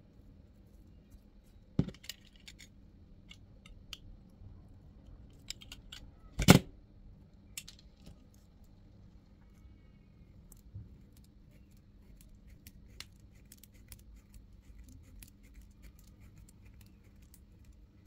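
Hand-handling of small tools and metal parts: scattered light clicks and taps, a sharp click near the start and a louder knock about six and a half seconds in.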